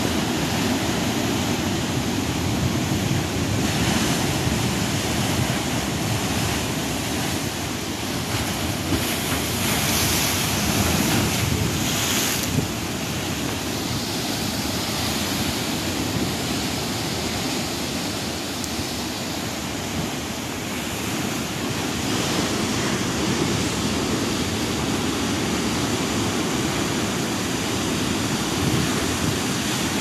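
Sea surf breaking on a rocky shore, with foaming water rushing and draining through the gaps between the rocks as a steady rush. Wind buffets the microphone.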